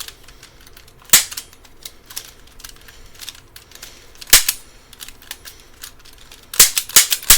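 A handheld gun firing sharp shots: one about a second in, another a little after four seconds, then a quick run of about five near the end.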